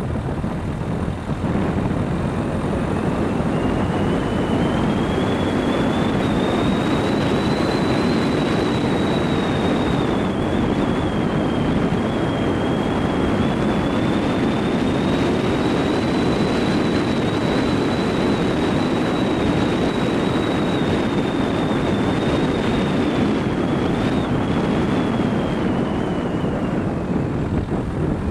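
Car driving along a road with steady road and wind noise, a high whine rising in pitch a few seconds in, holding, and falling away near the end.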